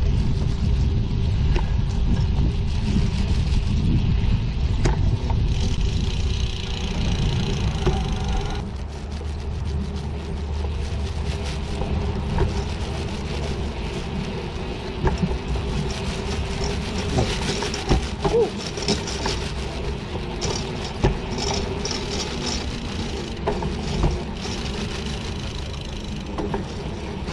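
Rail bike rolling along a railway track: the steady rumble and hum of its guide wheels running on the steel rails, with several sharp clacks in the second half.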